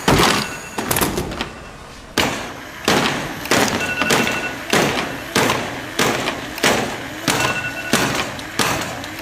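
Heavy thuds, each ringing briefly as it fades. After a short pause about two seconds in, they settle into an even beat of roughly three every two seconds.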